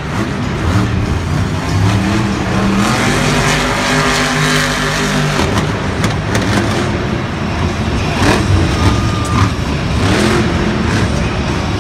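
Monster truck's supercharged V8 engine revving hard in an arena, its pitch climbing over the first few seconds, dropping off, then revving up again near the end.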